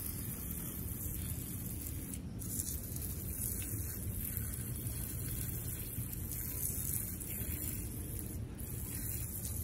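Steady hiss of water spraying from a hose nozzle onto potted succulents and their gravel-topped soil, over a steady low rumble.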